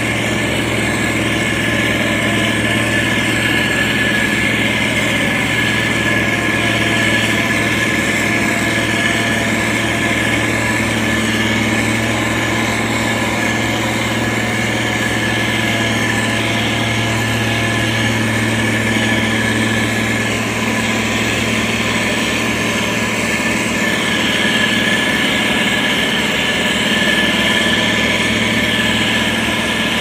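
Diesel engine of a heavy road-construction machine running steadily: a low hum with a thin, steady high whine above it.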